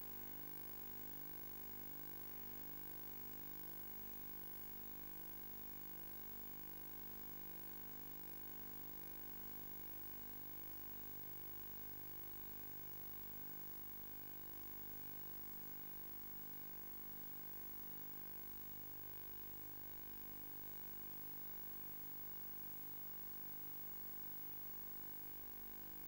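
Steady electrical hiss with a low buzz of fixed hum tones. It does not change as the plane takes off.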